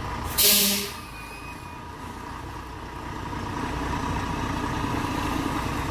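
Volvo 440 tractor unit's diesel engine running while hauling a loaded lowboy trailer, with a short, loud hiss of air from the truck's air system about half a second in. The engine note then rises gradually as the truck pulls forward under load.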